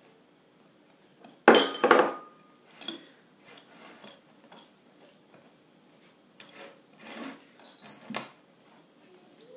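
Wire whisk clinking and scraping against a glass mixing bowl as flour is folded into beaten egg whites, with two loud clinks about a second and a half in and softer, scattered ones after.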